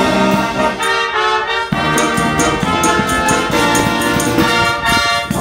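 A high school wind band playing live: brass and saxophones carry a melody over percussion keeping a steady beat. The low parts drop out briefly about a second in, then come back.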